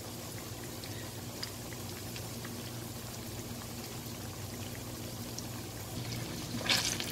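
Masala-coated fish pieces shallow-frying in hot oil in a non-stick wok: a steady sizzle with small scattered pops. Near the end a steel spatula scrapes and knocks against the pan.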